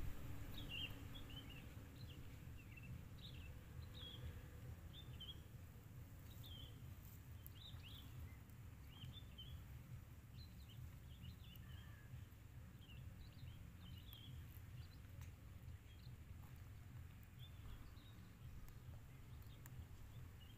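Faint birds chirping in many short, quick notes over a low steady background rumble, the chirps thinning out in the last few seconds.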